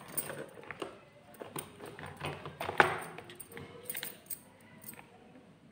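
Bangles on the wrists clinking and light handling clicks and rustles as hands knot silk thread wound around a strip for a tassel, with one sharper clack about three seconds in.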